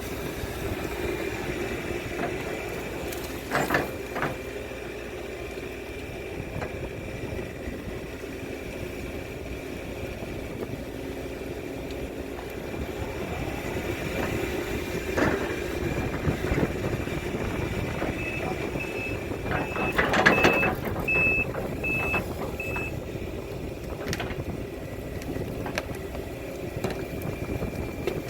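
Case CX210D excavator's diesel engine running steadily, with a few sharp metal clanks. In the second half a travel alarm gives about seven short, evenly spaced beeps.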